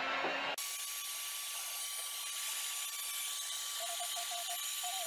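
Handheld electric heat gun switched up to its higher setting about half a second in, then blowing steadily: a strong airy hiss with a faint steady whine from its fan.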